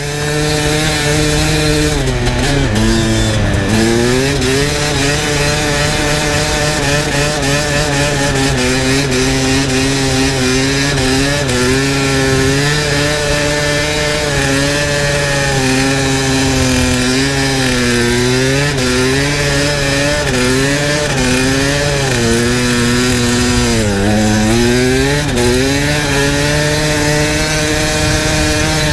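Dirt bike engine under hard throttle while riding on ice, its revs climbing and falling over and over with throttle and gear changes, with a few deeper drops in pitch along the way.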